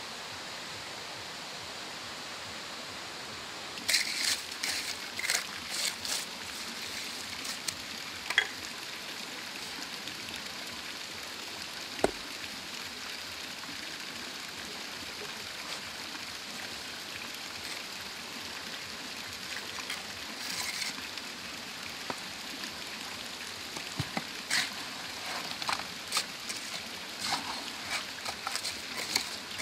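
Hand masonry work: a steel trowel scraping and knocking, and rocks set into wet cement mortar, heard as scattered clusters of short scrapes and clicks over a steady rushing background. Near the end, wet mortar is tipped out of a plastic bucket.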